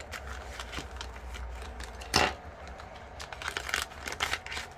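Thin plastic zip bag of diamond painting tools being handled and opened: irregular crinkling and rustling of the plastic, with one louder crackle about two seconds in.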